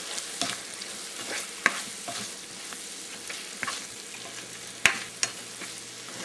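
Soya chunks, carrots and peas sizzling in a non-stick pan as they are stirred with a spoon, with scattered scrapes and clicks of the spoon against the pan and one sharper knock nearly five seconds in.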